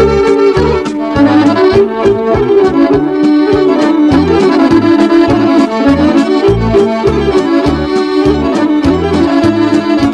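Instrumental introduction of a Serbian folk song, led by an accordion playing a fast melody over a bass line and a steady beat.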